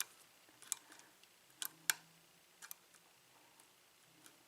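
Faint, irregular metallic clicks of a lock pick working the pin stacks of a 5-pin Kwikset-keyway lock with spool pins, as the pins are lifted and set one by one during single-pin picking.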